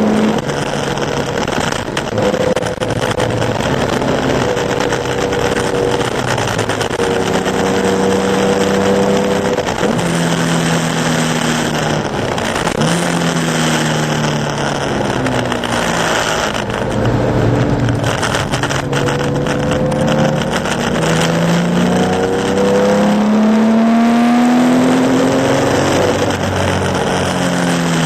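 Early Porsche 911 2.0's air-cooled flat-six engine at racing speed on a soaked track. It runs steadily, drops in pitch in the middle as it slows, then climbs repeatedly through the gears near the end, over a steady hiss of water spray.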